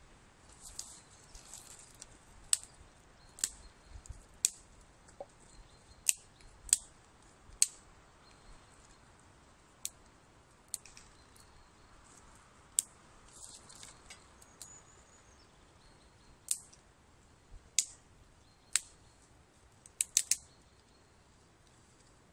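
Shears snipping rose hips from a bush: sharp single snips about every one to two seconds, with a quick cluster of snips near the end. Short spells of leaf rustling come between them.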